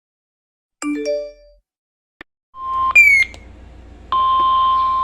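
A short three-note chime rising in pitch, a single click, then radio hiss comes in with a brief beep and a falling chirp. Near the end a loud steady alert tone starts: the NOAA Weather Radio warning alarm tone that comes before a National Weather Service warning is read.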